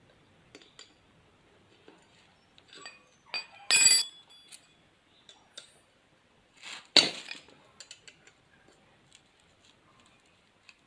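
Metal tools clinking and knocking against nuts and bolts as a spanner tightens two nuts together on a homemade welding electrode holder. There are scattered small clicks, a loud ringing clink about four seconds in, and a sharp knock about seven seconds in.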